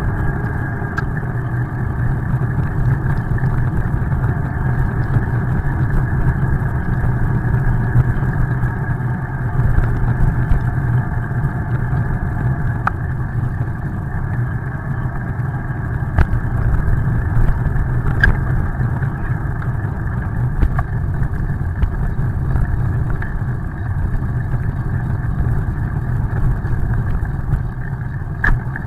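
Steady, muffled rush of wind and tyre noise from a bicycle riding on a wet road, with a few faint clicks.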